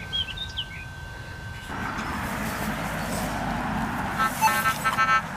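Birds chirping over a steady thin electronic tone, then a rushing noise with a low rumble, and a second before the end a quick run of short beeps from a Minelab CTX 3030 metal detector sounding off on a target.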